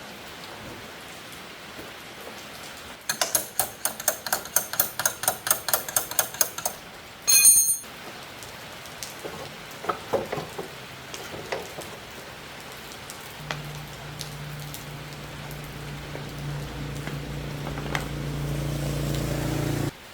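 Steady rain-like hiss throughout, with a fast run of metallic clicks, about four or five a second, a few seconds in, then a short loud burst. From about two-thirds of the way through, a small motor hums steadily, growing louder, and cuts off suddenly at the end.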